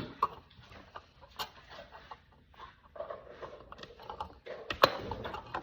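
Scattered taps, clicks and rustles of small items being handled, busier in the second half, with one sharper knock near the end.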